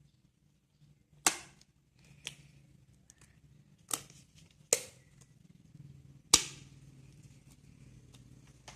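Slime being pressed and squeezed by hand, giving five sharp air-bubble pops spread unevenly over several seconds.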